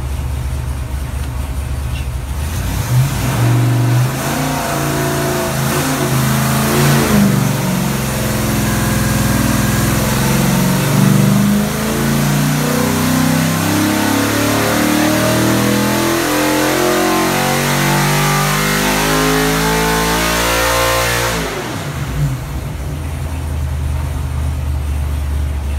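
LS 408 stroker V8 with an Edelbrock Super Victor single-plane intake, run on an engine dyno. It idles, then about two seconds in it goes into a dyno pull that climbs steadily in pitch for nearly twenty seconds. Near the end it drops back suddenly to idle.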